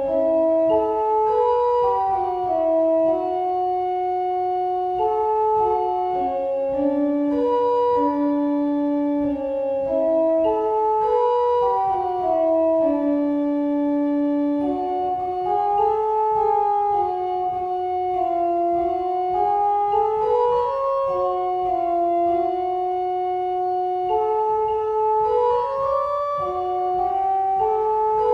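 Organ playing a slow melody in long held notes over sustained chords, the pitches stepping smoothly from note to note.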